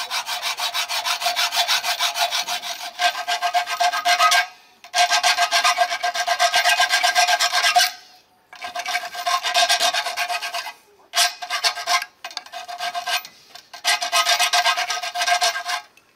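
Copper tubing being cut to length, the cutter scraping rapidly against the pipe in about six bursts separated by short pauses, with a steady ringing note from the tube throughout the cutting.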